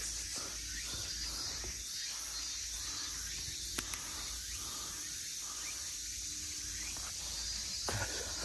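A hiker's footsteps on a hillside trail going downhill, irregular and soft, with one sharper tap a little under four seconds in. A steady high-pitched insect drone and a low wind rumble run behind them.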